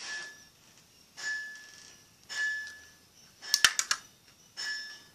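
A quick cluster of sharp plastic clicks and knocks about three and a half seconds in, as a plastic universal battery charger is handled and set down on a hard table. Under it, a short ringing tone repeats about once a second.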